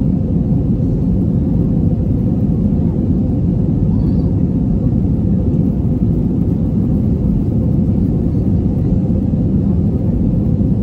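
Airbus A321 cabin noise during the climb after takeoff: the engines and rushing air make a steady, loud, low rumble.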